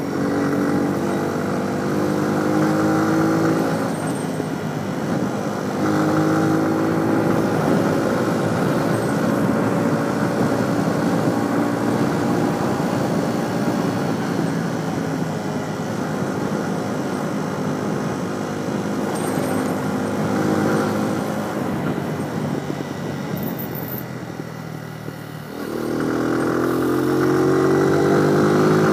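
Small motorcycle engine pulling through the gears while riding, its note climbing and dropping back at each gear change, over wind noise on the helmet microphone. Near the end the engine drops low, then rises steeply as the bike accelerates again.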